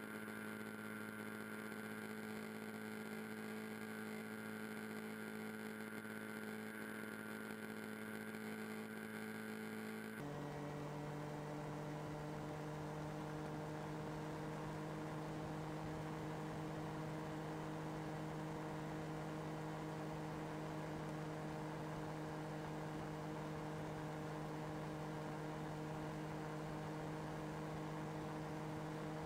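Faint steady hum made of a few fixed tones. About ten seconds in it switches abruptly to a different, lower set of evenly spaced tones.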